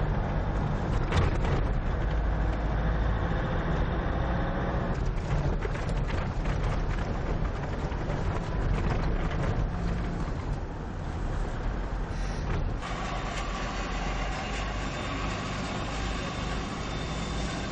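Road and engine noise heard from inside a moving car: a steady low rumble with tyre and wind noise, changing abruptly twice.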